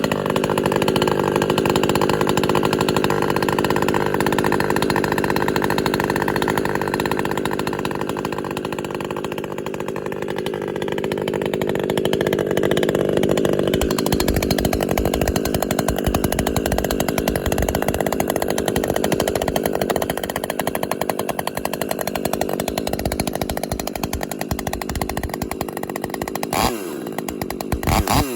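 Husqvarna T540 XP Mark III top-handle two-stroke chainsaw running at high revs with a steady note; about halfway through the sound turns rougher and more uneven.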